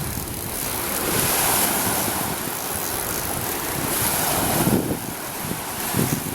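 Surf washing onto the beach in swells, with wind buffeting the microphone.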